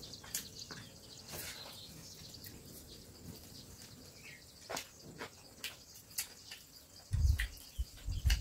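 Quiet eating by hand: small scattered clicks and smacks of chewing and of fingers working rice on a banana leaf, with a couple of dull low thumps near the end.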